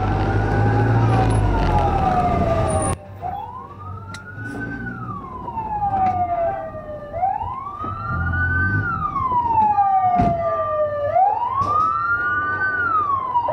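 Fire truck siren wailing: a quick rise in pitch, then a long slow fall, repeating about every four seconds. For the first three seconds it is heard over loud engine and road rumble, which cuts off abruptly.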